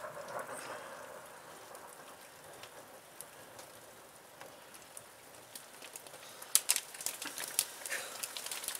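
Rain and hail pelting a house window, heard from inside as a steady hiss. From about two-thirds of the way in, sharp ticks of hailstones striking the glass come thick and fast and are the loudest part.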